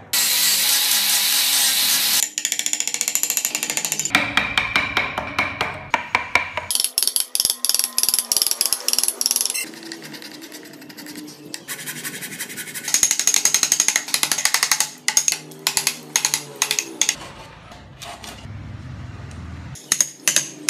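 An angle grinder runs on wood for about two seconds. Then come short stretches of hand-carving on wood that change abruptly from one to the next: chisel and sanding strokes, rapid and repeated scraping and tapping.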